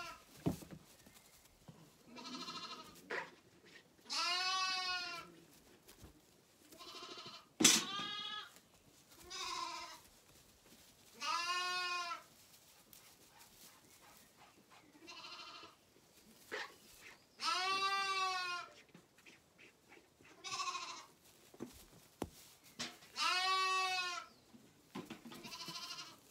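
Zwartbles lambs bleating over and over, about a dozen short high calls spaced a second or two apart, as hungry lambs call for their milk bottles at feeding time. A single sharp click sounds about eight seconds in.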